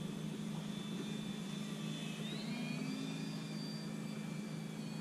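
Brushless electric outrunner motor (Propdrive 2830-1000) spinning a 10x4.5 propeller on an RC model Sopwith Camel in flight: a steady drone with a high whine that rises in pitch about two seconds in.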